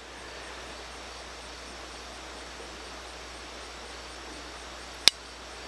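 Glock P80 pistol's trigger being worked in a dry-fire trigger demonstration: a faint steady hiss, then two sharp clicks near the end about half a second apart, the second louder, as the trigger breaks and resets.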